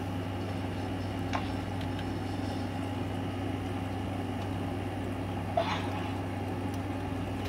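Steady low machine hum with a few faint steady tones above it, and two brief faint clicks, one about a second and a half in and one about two-thirds of the way through.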